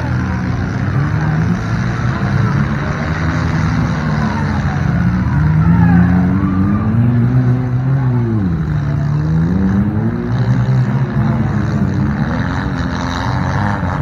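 Several demolition derby cars' engines revving and running at once, their pitch rising and falling as they accelerate and back off. One engine drops low and climbs again about eight to nine seconds in.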